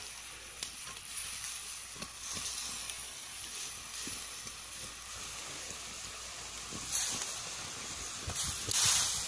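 Instant noodles boiling in an aluminium wok over a wood fire: a steady hiss and sizzle, with scattered light clicks. The hiss rises in two louder rushes, about seven seconds in and again just before the end.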